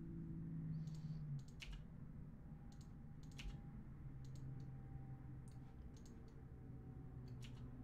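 Computer keyboard keys and mouse buttons clicking, about a dozen quiet clicks at uneven intervals, over a faint low steady hum.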